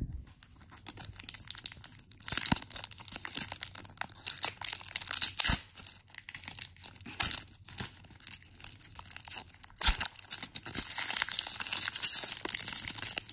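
Foil wrapper of a Pokémon HeartGold SoulSilver booster pack being torn open and crinkled by hand, in irregular crackling bursts with a few sharp clicks.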